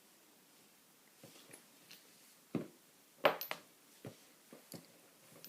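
Small metal clicks and taps as pins and springs are worked out of a dismantled Assa 5-pin cam lock. It starts quiet, then gives scattered single ticks from about a second in, with the loudest cluster of clicks a little past the middle.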